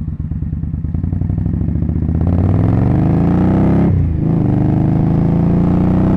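Motorcycle engine running with a pulsing beat, then accelerating with its pitch rising steadily. About four seconds in the pitch dips briefly, as at a gear change, and the engine climbs again.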